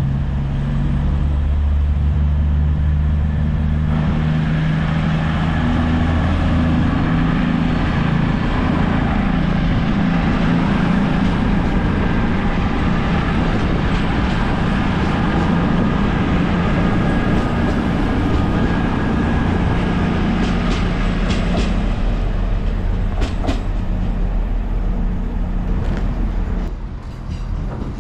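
Diesel train running past with a steady engine drone, its wheels clicking over rail joints during the last several seconds.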